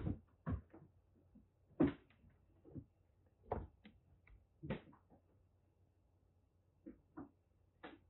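Irregular knocks and rattles of a wire pet cage, about eight short sharp ones spread over several seconds, as a calico kitten climbs about inside it.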